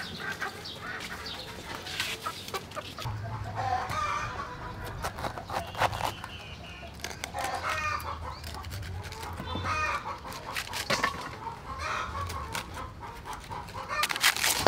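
Chickens clucking on and off. Near the end comes a crisp crunch, a knife cutting through a head of cabbage.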